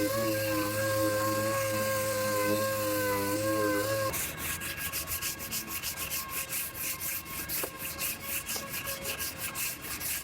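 Held, slightly wavering tones for about four seconds, then a sudden change to rhythmic rasping strokes, about four a second, of hand sanding on the damaged rear body panel being repaired.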